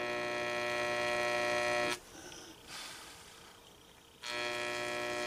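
Electrolytic etching machine buzzing on its AC setting while the marking pad closes the circuit through the stencil, darkening the etched letters. Two steady buzzes of about two seconds each, with a pause of about two seconds between them.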